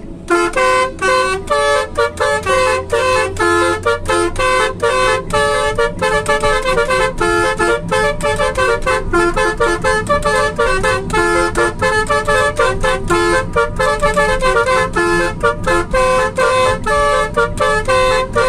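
Basuri musical air horn playing a fast melody of short notes, one after another, keyed from a melodica keyboard wired to its controls, heard from inside the car.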